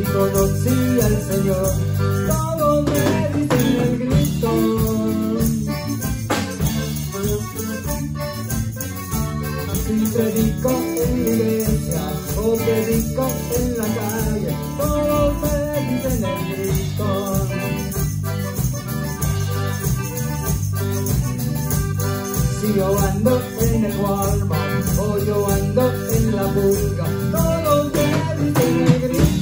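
Live band music: an accordion playing melody lines over electric guitar, electric bass and a drum kit, steady and continuous.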